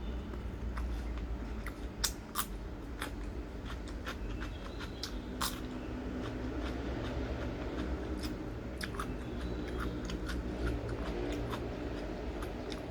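A person chewing and biting crisp food close to the microphone, with irregular sharp crunches, over a steady low hum.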